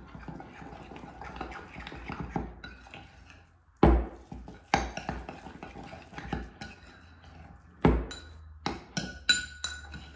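Spoon stirring dough in a mixing bowl, scraping steadily at first. From about four seconds in there are sharp knocks and clinks of the spoon against the bowl, the loudest about four and eight seconds in and a quick run of them near the end.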